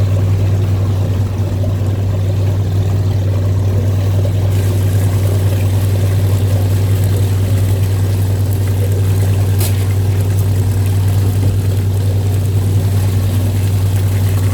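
Septic pump truck running steadily at the tank: a constant low engine and vacuum-pump drone, with a rushing hiss of liquid being drawn up the hose. A brief burst of hiss comes near the ten-second mark.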